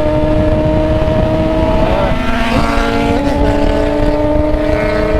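Yamaha XJ6's inline-four engine running under way, a steady engine note that climbs a little about halfway through, heard over heavy wind rumble on the rider's microphone.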